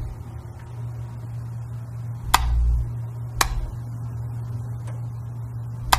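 A low steady hum with a few dull thuds, each starting with a sharp click, spaced irregularly about a second or more apart.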